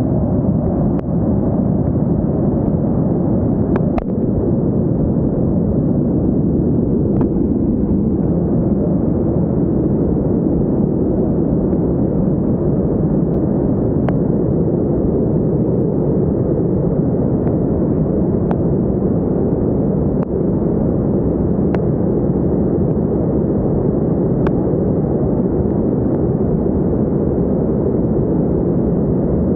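Mudflow of muddy water and debris surging past: a loud, steady, deep rushing rumble, with a few faint sharp knocks scattered through it.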